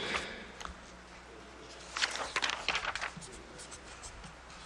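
Short scratching strokes of writing on a surface, a quick burst at the start and a longer run of strokes about two seconds in.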